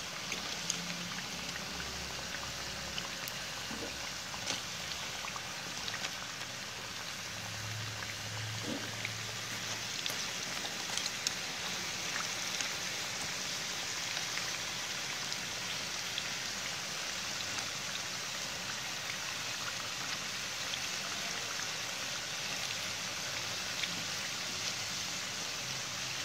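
Purple yam fritters deep-frying in a pan of hot oil: a steady sizzle with scattered small pops and crackles.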